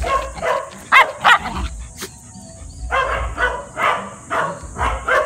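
Puppy barking and yipping: two sharp, rising yelps about a second in, then a string of short barks about every half second from about three seconds in.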